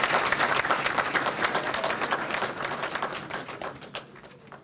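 Audience applauding after the children's carol performance, the clapping thinning out and dying away toward the end.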